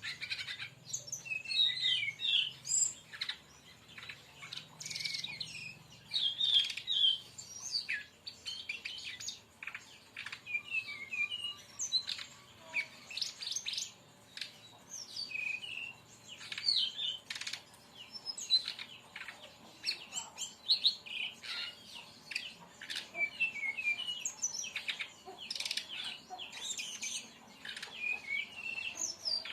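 Brown-chested jungle flycatcher (sikatan rimba dada coklat) singing a dense, unbroken run of quick, high chirps and short trills.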